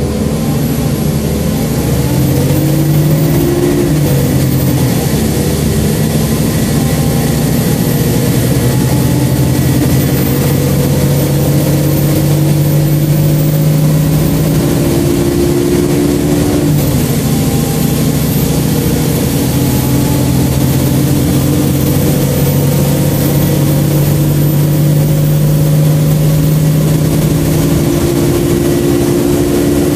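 Volvo B7LA articulated bus's diesel engine heard from inside the saloon, pulling through its ZF automatic gearbox. The engine note climbs, then drops with an upshift about four seconds in, runs steady, and drops again with another shift a little past halfway.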